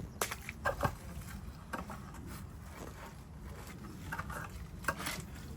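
Irregular small knocks, rustles and wet squishes of objects being handled and moved around in wet, muddy ground, a few short sounds each second.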